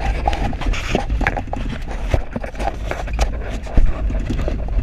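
Inside a minibus driving on a rough dirt road: a steady low rumble from the engine and road, with the body rattling and knocking over bumps.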